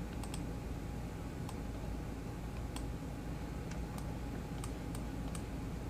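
Faint computer mouse clicks, about eight of them spread irregularly, over a steady low hum.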